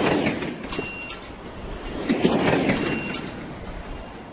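A train rushing along its rails in loud swells that rise and fade about every two and a half seconds, each with a brief thin high squeal. It dies away at the end.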